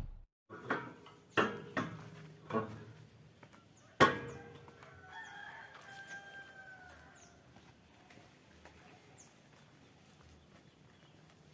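Four sharp knocks, the last and loudest about four seconds in, followed by a rooster crowing faintly.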